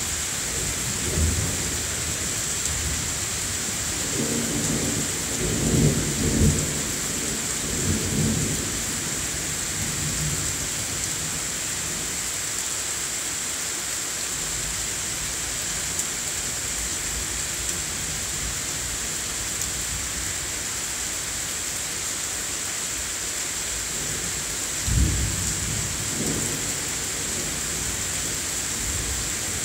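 Steady heavy rain from a thunderstorm, with thunder rumbling: a long rolling rumble from about four to nine seconds in, strongest near six seconds, and another starting sharply about twenty-five seconds in.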